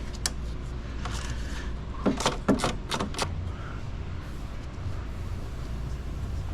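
A few short, sharp clicks and knocks of tools and parts being handled during radiator removal, clustered about two to three seconds in, over a steady low hum.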